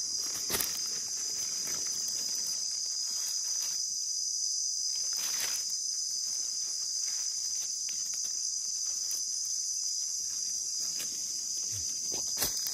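Steady, high-pitched drone of insects, with a few faint clicks.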